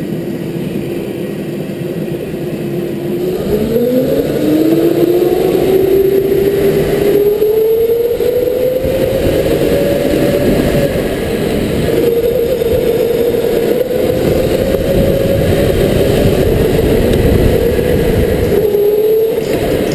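Electric go-kart motor whining under way. The pitch holds steady at first, then climbs as the kart picks up speed and dips briefly twice as it slows. A low rumble runs underneath.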